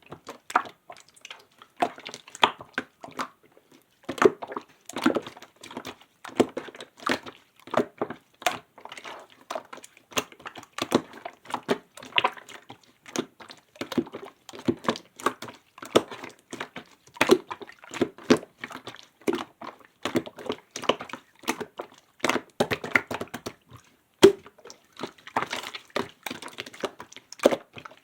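Clear slime with glitter and sequins being squished and worked by hand, making a fast, irregular string of sticky clicks and pops.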